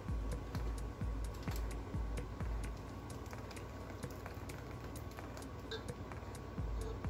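Light clicks and taps of a metal spoon against a metal saucepan as lemon pie filling is scraped and poured out, over background music with a low pulsing beat.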